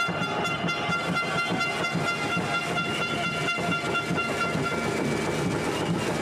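A long, held horn tone over the general noise of a crowd at an ice rink.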